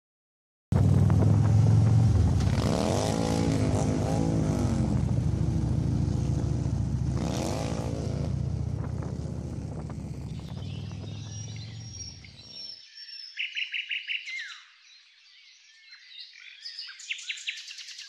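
Motorcycle engine cutting in suddenly, running with a deep steady note and swelling up and down in pitch twice before fading out. Birds then chirp and sing.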